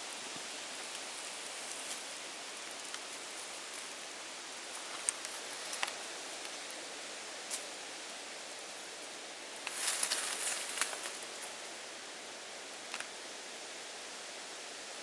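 Steady outdoor hiss with a few short scratches, then a burst of scratching about ten seconds in, as a cat's claws grip and scrape tree bark while it climbs.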